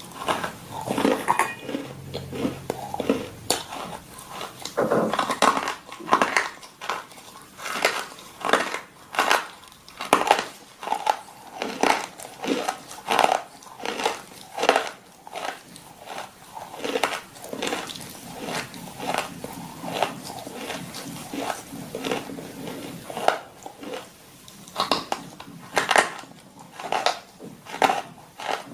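A dog chewing hard, crunchy food such as kibble or treats: repeated crisp crunches, about one or two a second.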